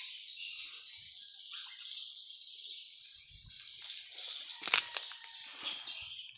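Steady, high-pitched chorus of insects, with a few faint bird chirps. A brief rustling crackle comes about three quarters of the way through.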